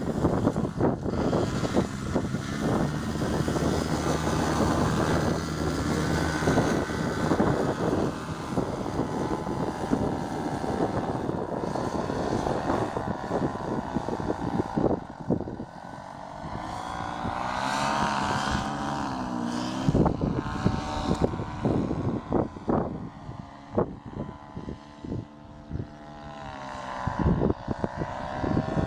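Small propeller engine running, its pitch rising and falling as the throttle changes, with gusts of wind buffeting the microphone.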